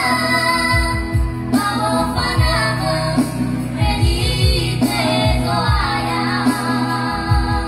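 A trio of children singing a song together into microphones, amplified, over an instrumental backing with a drum beat.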